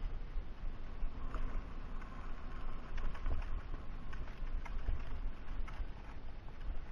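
Mountain bike descending a dirt trail, heard from a camera mounted on the rider or bike: a continuous low rumble of wind and tyres on the dirt, with frequent rattling clicks and knocks from the bike jolting over bumps.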